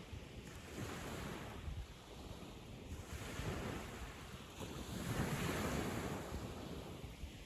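Surf on a sandy beach: waves breaking and washing up the sand, the noise swelling and fading in turn, with the largest wave about five seconds in.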